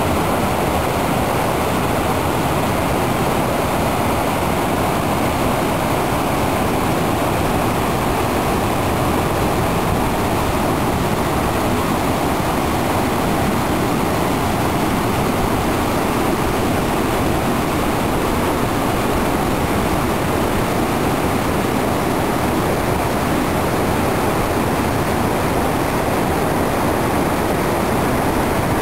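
Stream water running over rocks: a steady, unbroken rushing.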